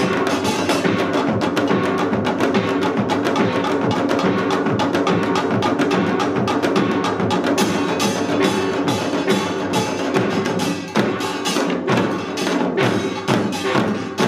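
Utdari-style samul nori ensemble playing: small kkwaenggwari gongs clattering over janggu hourglass drums and buk barrel drums in a fast, dense rhythm. About eleven seconds in the strokes thin out into more separated beats.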